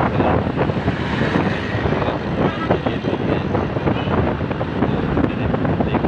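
Road and traffic noise from a vehicle moving along a highway, with gusts of wind buffeting the microphone.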